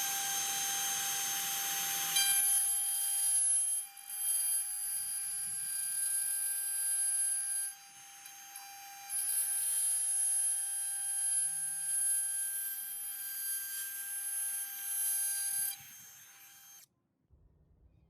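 Electric router running with a high, steady whine while routing track grooves in plywood. It gets louder and rougher in long stretches as the bit cuts, with short lulls about 4 and 8 seconds in, and it cuts off about 17 seconds in.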